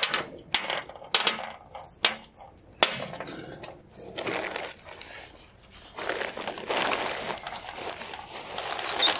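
Paper towels and plastic bags being crumpled and bundled up by gloved hands on a glass tabletop, a continuous rustling and crinkling. It follows a few sharp clicks and snaps in the first three seconds.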